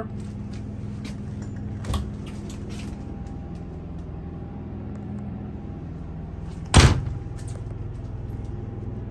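A wooden wardrobe or cabinet door in a motorhome shuts with one loud, sharp knock about seven seconds in, after a lighter knock about two seconds in. Under it is the steady low hum of the coach's running engine and generator.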